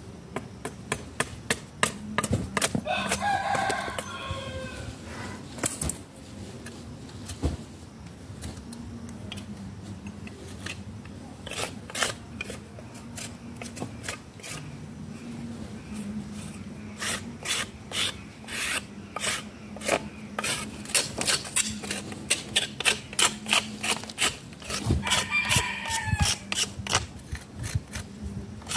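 Repeated sharp strokes of a blade scraping and chopping bark off a wooden slab, coming faster in the second half. A rooster crows twice, about two seconds in and again near the end.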